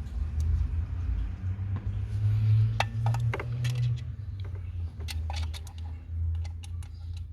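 Small metallic clicks and clinks of screws and a hand tool as the screws fixing an electric power steering control module to the steering column are put in, irregular and most frequent in the second half. A steady low hum runs underneath.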